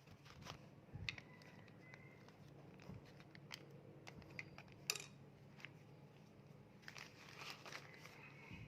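Faint, scattered clicks and light taps of hand tools and small metal parts being handled on an AC compressor, the sharpest about five seconds in.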